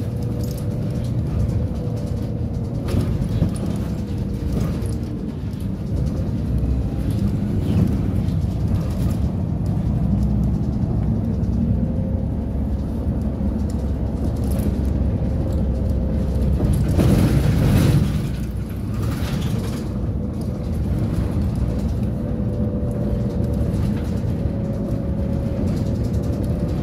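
City bus driving, heard from inside the passenger cabin: a steady low rumble of motor and road with a faint whine over it. The rumble swells louder for a moment about two-thirds of the way through.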